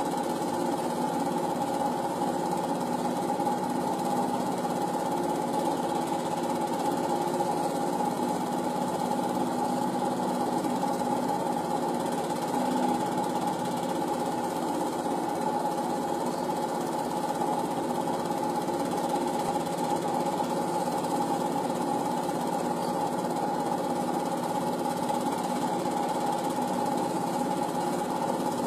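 Film projector running: a steady mechanical whir with a fast, even clatter from the film-advance mechanism, unchanged throughout.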